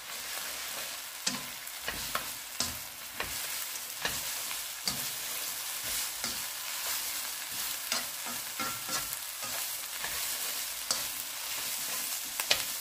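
Julienned vegetables and fried noodles sizzling in a hot wok as they are stir-fried, with frequent sharp clicks and taps of the utensil against the pan.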